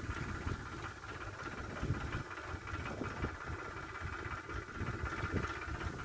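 Tractor hauling a loaded trolley, its engine running at a distance under an irregular low rumble of wind on the microphone, with a faint steady high tone.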